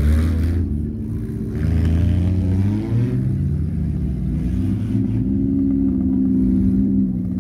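Engines of battered wreck-race cars revving as they drive around the track, with the pitch rising and falling as they accelerate and ease off. One car passes close by partway through.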